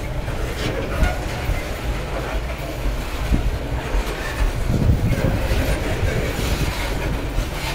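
Freight train's covered hopper cars rolling steadily past, their steel wheels rumbling and clacking on the rails.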